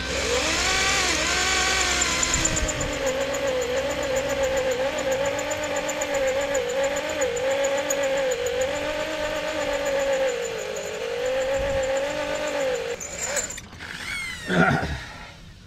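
Electric drill running under load as it drills out a snapped Torx cylinder-head bolt in a Renault F4R engine, its motor whine wavering as the bit bites, then winding down with a falling pitch near the end.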